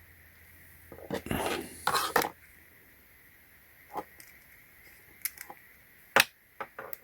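Small plastic toy parts being handled: a rustle of handling a second or two in, then scattered sharp clicks, the loudest near the end.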